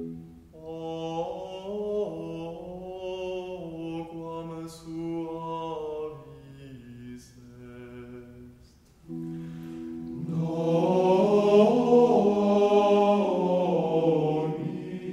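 Background music: a slow sacred chant sung by voices over held chords, dipping quiet for a moment and then swelling louder about ten seconds in.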